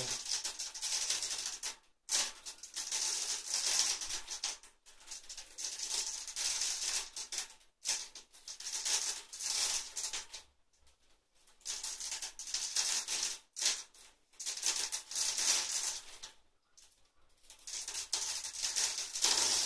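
Pull-ups on a thick rope looped over a pull-up bar: hissing, rustling noise in bursts of one to three seconds with short breaks between them, one burst after another through a set of repetitions.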